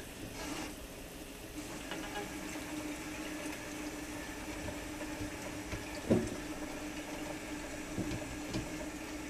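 Kitchen tap running as hands are washed under it, a steady rush of water over a low hum. A sharp knock about six seconds in and a lighter one near the end.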